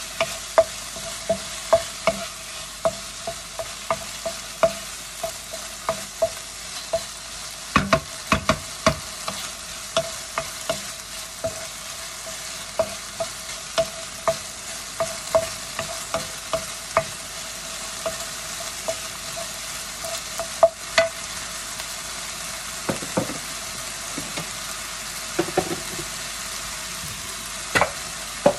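Wooden spoon stirring diced chicken frying in a non-stick pan, knocking against the pan one to two times a second, each knock with a short ringing tone, over a steady sizzle. The knocks thin out in the last third.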